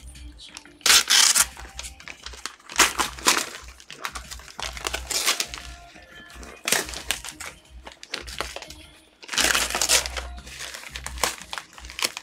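Brown kraft-paper wrapping being torn and crumpled off a cardboard box in a series of loud rips, with music playing underneath.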